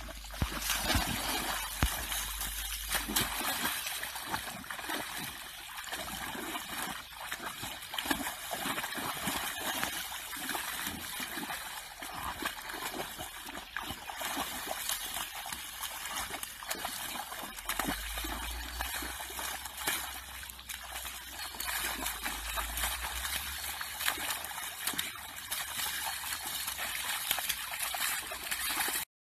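An Irish wolfhound pawing and stamping in a shallow puddle, the water splashing and sloshing with many small splashes in quick succession.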